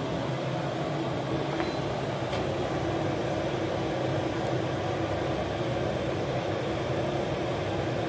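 A 5 kW diesel air heater running steadily at full output, its blower giving a steady even hum.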